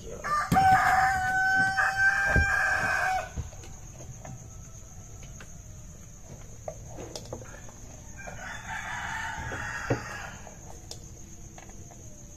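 A rooster crowing: one long held call of about three seconds near the start, then a fainter, rougher sound around nine seconds in. A few light clinks of spoons on dishes.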